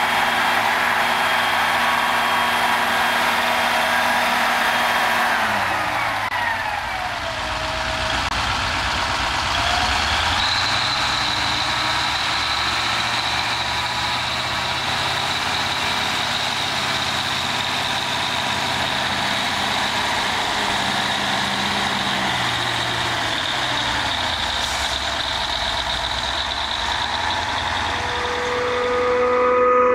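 Heavy tractor engines working under load as the Ford FW 60 four-wheel-drive tractor tows a Deutz tractor and loaded tipper through soft ground. The engine note drops about six seconds in, rises again near ten seconds and drops again a little after twenty seconds, with a steady high whine over it.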